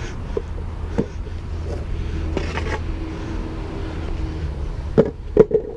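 Skateboard wheels rolling over brick and concrete paving, a steady low rumble, which stops near the end, followed by three sharp clacks from the board.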